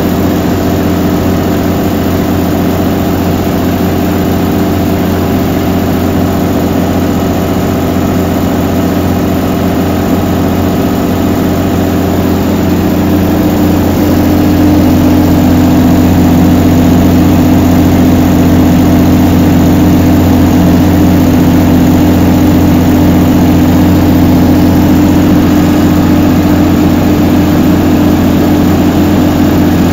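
Large diesel engine of an open-frame 380 kVA generator set running steadily at close range: a constant multi-tone engine hum that grows louder and fuller about halfway through.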